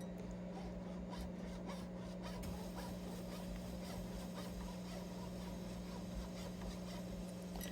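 Thin nut-slotting file being worked back and forth in a guitar nut's string slot, a soft steady filing on a hard nut material, over a constant low electrical hum.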